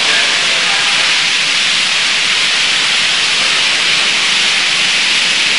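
Steady, even hiss of recording noise, with no voice, in a gap between verses of a recorded Quran recitation.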